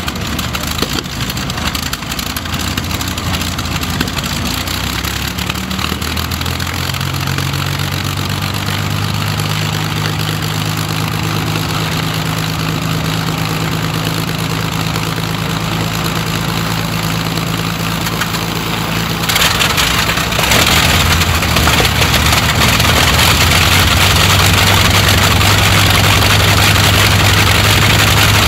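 Rolls-Royce Merlin V12 aero engine running at idle with a steady low note. About two-thirds of the way through, the Bristol Hercules sleeve-valve radial beside it starts and the combined engine sound becomes louder and rougher.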